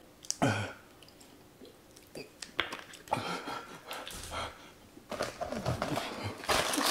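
A man breathing hard through his mouth in irregular hissing gasps and puffs with short groans, getting denser near the end: a reaction to the burn of an extremely hot pepper chip.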